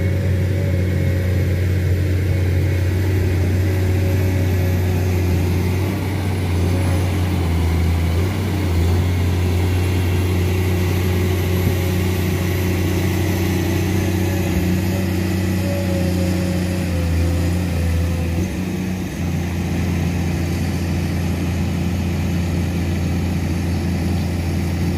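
Komatsu hydraulic excavator's diesel engine running steadily, easing off briefly about three-quarters of the way through.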